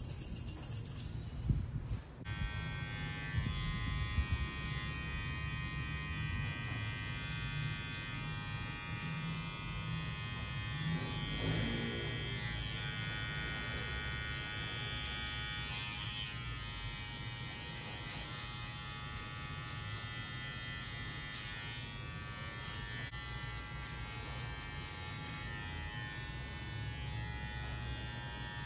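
Electric hair clipper buzzing steadily as it cuts hair. Background music stops about two seconds in.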